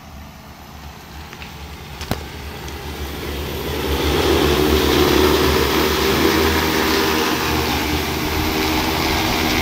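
Multi-rotor crop-spraying drone's rotors humming, growing louder over the first few seconds as it flies in close, then holding steady. A single sharp click about two seconds in.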